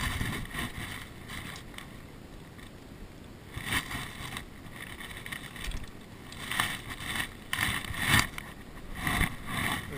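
Handling noises from a freshly landed largemouth bass being gripped and held up in a small boat: a string of irregular short knocks and rustles, more frequent in the second half, over a low background hiss.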